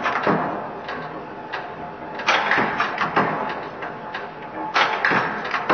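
Mechanical power press running, heavy clanking strokes with lighter clicks and rattles between, repeating irregularly about every one to two seconds.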